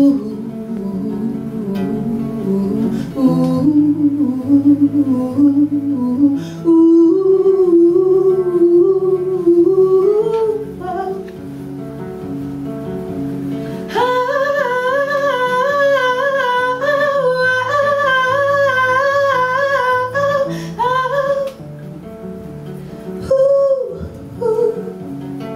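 A young woman singing a wordless melody over strummed acoustic guitar, with one long wavering note held for several seconds from about halfway through.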